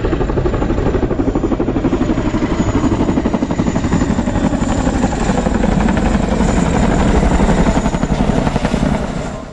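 Helicopter at full rotor speed: rapid blade chop with a steady high turbine whine above it. The sound cuts off abruptly near the end.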